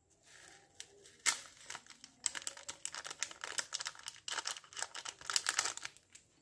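Small plastic seasoning sachet of sesame seeds and seaweed flakes crinkling as it is handled and shaken out, a quick irregular run of crackles lasting several seconds.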